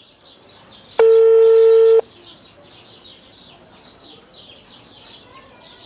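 Telephone ringback tone from a mobile phone while a call waits to be answered: one steady one-second tone about a second in, part of a cycle that repeats about every five seconds. Faint short chirps sound in the background throughout.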